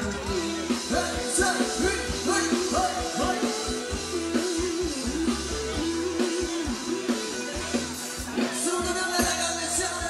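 Thai ramwong dance music from an amplified live band: a singer's voice over a steady drum beat.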